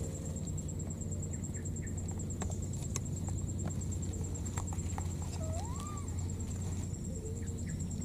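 Small clicks and rustles of dry grass and leaves as a baby monkey moves about in the undergrowth, over a steady low hum and a fast, even, high-pitched ticking. About five and a half seconds in comes one short squeak that rises and then falls.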